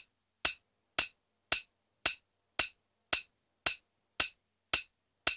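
A lone sharp percussive click from the song's beat, repeated evenly about twice a second with silence between the hits, the rest of the music dropped out.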